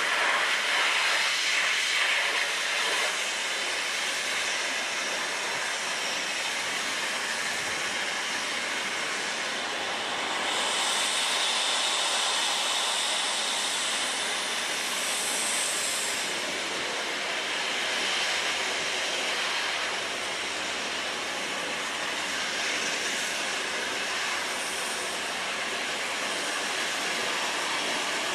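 Conrail diesel-hauled coal train, two locomotives leading a string of loaded hoppers, rolling toward the listener: a steady noise of engines and wheels on rail. A higher hiss swells for a few seconds around the middle.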